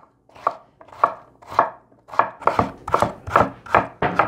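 Kitchen knife dicing a raw potato on a wooden cutting board: a run of about ten sharp knife strikes on the board, coming quicker about halfway through.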